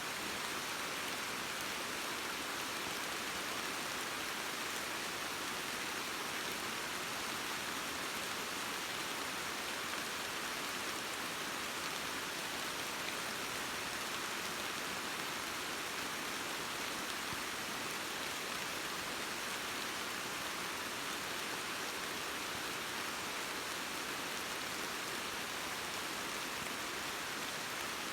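Steady rain falling: an even, unchanging hiss.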